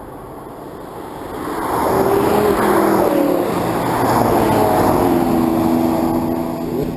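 Several Lamborghini supercars accelerating past one after another. Their engine notes swell in about a second and a half in, rise and fall in pitch as the cars drive through, and ease off near the end.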